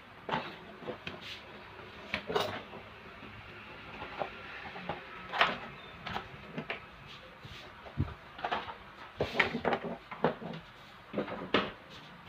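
Irregular clicks, knocks and light clatter of plastic and metal fan parts being handled and fitted as an orbit fan's cover and wire guard are put back on. A few of the knocks are sharper and louder than the rest.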